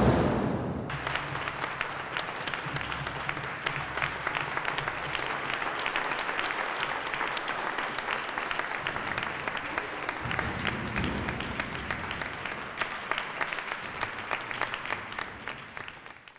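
The tail of a loud bang dies away in the first second. Then an audience applauds with dense, steady clapping that fades out at the end.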